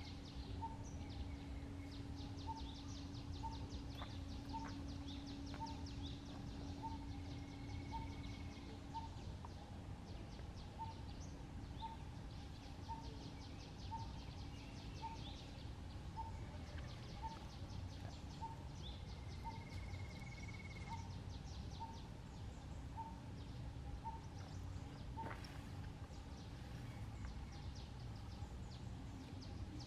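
Outdoor animal ambience: a short call repeats evenly about every three-quarters of a second, over rapid high chirring and a low steady hum.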